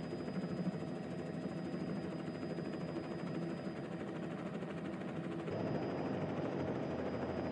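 Steady helicopter rotor and engine noise with wind. The sound shifts abruptly about five and a half seconds in.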